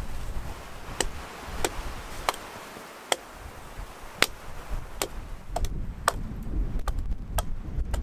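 Pine branches being taken off a small tree: sharp cracks about one a second, growing quicker over rustling from about five and a half seconds in.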